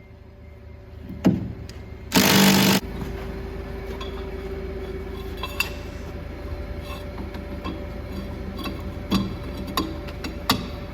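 A cordless impact wrench gives one short burst on a cutting-edge bolt about two seconds in. A steady low hum follows, with a few sharp metal clinks and knocks.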